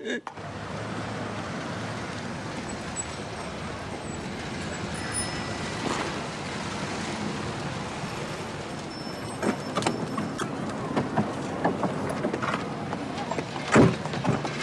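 A motor vehicle running steadily with a low hum and road noise. Scattered clicks and knocks come in after about ten seconds, with one louder thump near the end.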